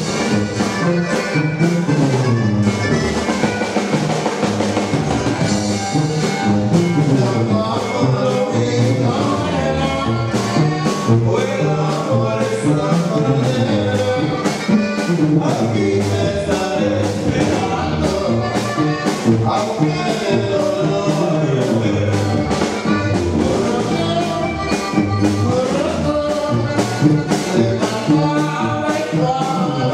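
Loud Latin dance music with a steady beat and a singing voice.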